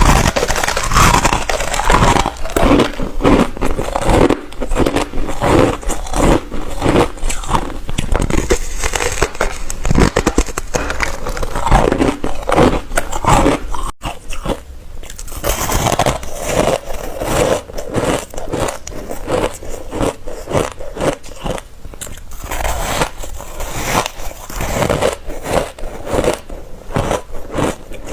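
Ice being bitten close to the microphone: repeated crunching bites with crackling fragments, one after another. About halfway through the crunching breaks off and resumes a little quieter.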